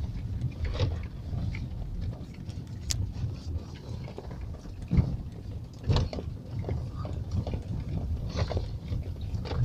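Low, steady rumble of a car's engine and tyres heard from inside the cabin, the car creeping through snow on a drifted road, with two sharp knocks about five and six seconds in.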